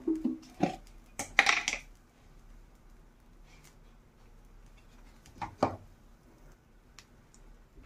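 Kitchen utensils and containers being handled beside a tawa: a quick run of short clinks and clatters in the first two seconds, then one more about five and a half seconds in.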